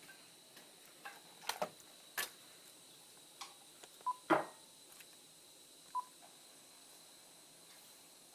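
A telephone being handled and its buttons pressed: scattered clicks and two short beeps about four and six seconds in, with no dial tone on the line.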